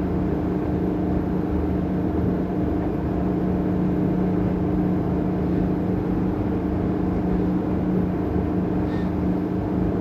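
Twin Volvo Penta IPS500 diesel engines of a Sessa C42 motor yacht running steadily under way at planing speed: a constant drone with an even hum that holds one pitch throughout.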